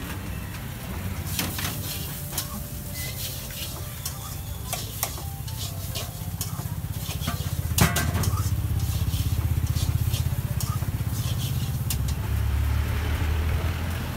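A dosa sizzling on a flat griddle while metal spatulas clink and scrape against the hot plate in sharp, irregular taps, the sharpest about eight seconds in, over a steady low hum.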